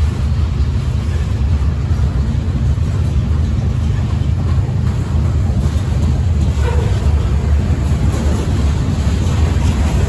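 Freight train boxcars rolling past at speed, a steady low rumble of steel wheels on the rails.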